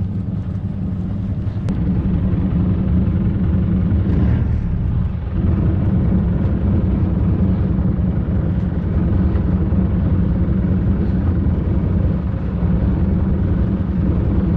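Small fishing boat's engine idling with a steady low rumble.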